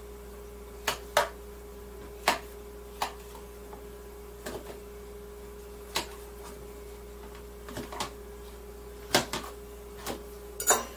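Kitchen knife cutting mushrooms on a cutting board: about a dozen sharp knocks of the blade hitting the board at uneven intervals, the loudest near the end.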